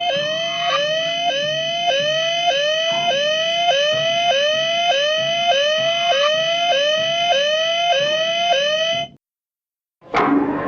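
Electronic science-fiction sound effect like an alarm: a short upward-sliding warble repeating about one and a half times a second over a steady high tone, cutting off suddenly about nine seconds in. After a second of silence, a different effect starts near the end with a sharp downward sweep.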